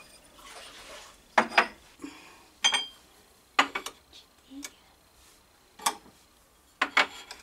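Stemmed wine glasses being set down upside down on a wooden shelf, one after another: several sharp glass clinks and knocks about a second apart, some with a brief ring.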